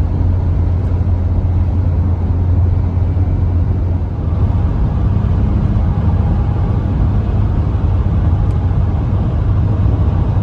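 Road noise heard inside a car moving at highway speed: a steady low rumble of tyres and engine with an even rushing hiss over it.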